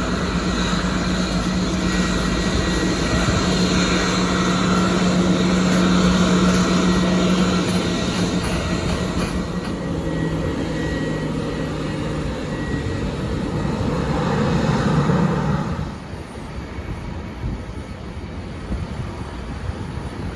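Jet airliner engines running with a steady low hum, swelling briefly and then falling off sharply about three quarters of the way through.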